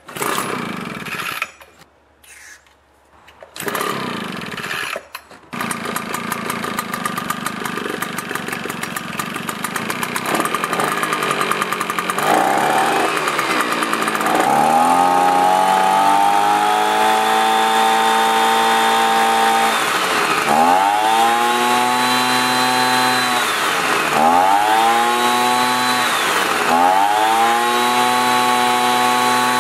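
Echo PB300E backpack leaf blower's two-stroke engine starting after a carburetor rebuild: a few short bursts, then it catches about five seconds in and runs. Its speed climbs to a steady high rev, then dips and picks back up three times near the end.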